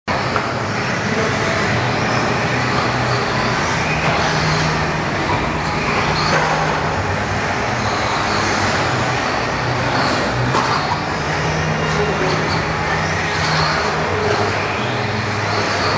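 Radio-controlled off-road buggies running laps on an indoor dirt track: a steady mix of small motors and tyres, with higher whines that rise and fade as cars pass, in a reverberant hall.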